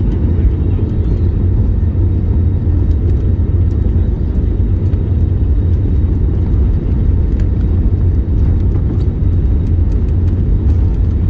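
Jet airliner's takeoff roll heard from inside the cabin: engines at takeoff thrust over a steady, deep rumble from the wheels on the runway as the plane accelerates.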